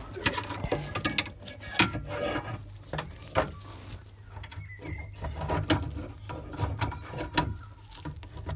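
Irregular metallic clicks and knocks of hand tools and metal parts as a VW Beetle's gear shift rod is worked and pivoted in its bush, over a steady low hum.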